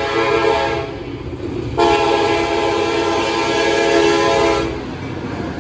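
Freight diesel locomotive's multi-chime air horn sounding a chord in separate blasts: one ends just under a second in, then a long blast of about three seconds, over a steady low rumble from the train.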